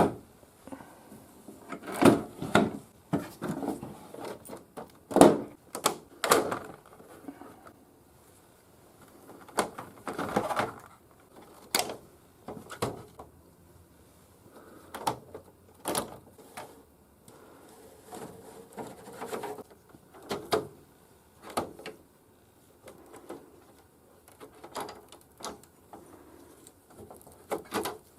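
Irregular clicks, knocks and scraping from handling the plastic front panel and filters of a Daikin wall-mounted air conditioner, with a few sharper snaps among softer rubbing.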